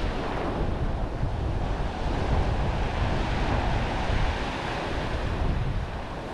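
Ocean surf breaking and washing on a sandy beach, with wind buffeting the microphone in uneven low gusts.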